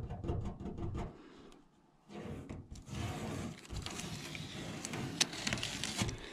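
Blue masking tape being peeled off a van roof and crumpled by hand. A run of quick crackling ticks comes first, then a brief pause about two seconds in, then steadier crackly rustling.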